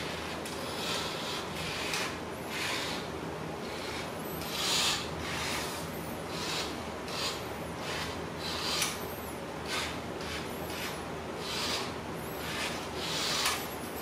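Plastic toy car's wheels rubbing and scraping on a tile floor in repeated short rasping bursts, roughly one or two a second, over a low steady hum.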